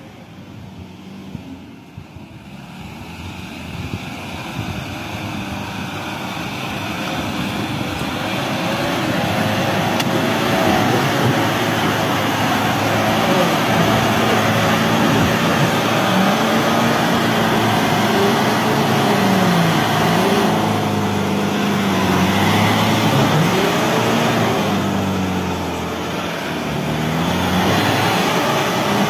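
Mahindra Bolero 4x4's diesel engine labouring up a muddy slope. It grows louder over the first ten seconds as the vehicle approaches, then revs up and down under load.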